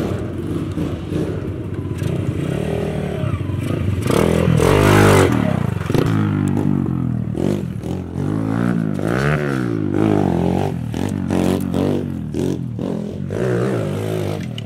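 Small 125cc single-cylinder pit bike engine revving while riding off, its pitch rising and falling several times as it accelerates and shifts.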